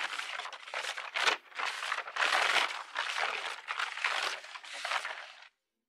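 Rummaging through papers and belongings: a run of short rustling, crinkling shuffles that stops shortly before the end.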